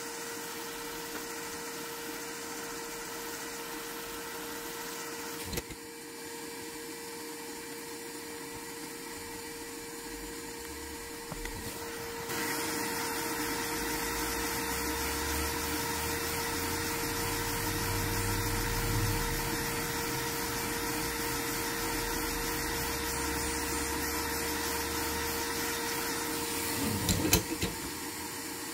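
Hot air gun blowing steadily, a constant whine from its fan over rushing air, heating a phone's glued back cover to soften the adhesive. It gets louder partway through, and a few sharp clicks come near the end as the back cover is pried up.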